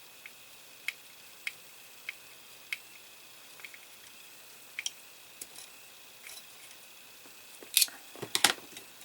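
Small screw being driven into a die-cast metal model part with a screwdriver: light clicks, five evenly spaced about every half second at first, then irregular. A louder cluster of knocks and clatter from the parts being handled comes about eight seconds in.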